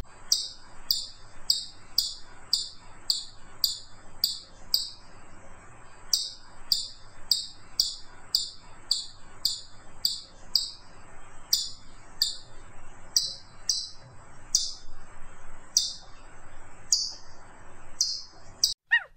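Ground squirrel giving a string of sharp, high chirps, about two a second, with a short break about five seconds in and the calls spacing out toward the end.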